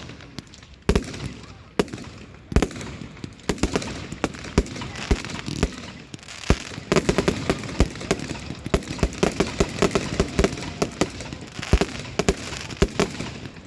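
Fireworks exploding: single loud bangs a second or so apart, then from about halfway a dense run of rapid crackling reports.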